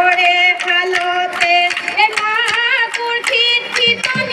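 A woman singing a Jeng Bihu song into a microphone, holding one long note before moving on through the melody, over a steady beat of sharp strikes about three or four a second.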